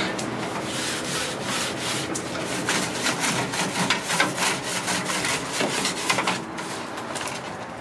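Scraping and scrubbing of a barbecue smoker's wire rack grates, quick back-and-forth strokes at about three a second that die away about six and a half seconds in.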